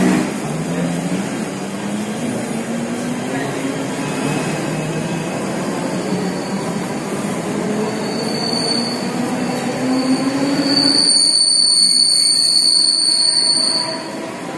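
Electric local train running past along the platform, with a rumble and a motor whine that slowly rises in pitch. About three seconds before the end, a high steady squeal takes over for about three seconds.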